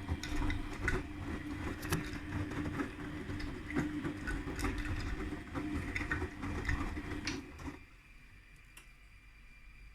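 Beko 8 kg washing machine running: a steady motor hum with irregular clicks and knocks, stopping about eight seconds in.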